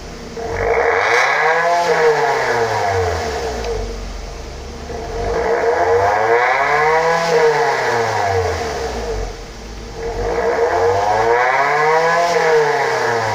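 An engine revving up and falling back three times, each rev rising smoothly in pitch and easing down over about three seconds.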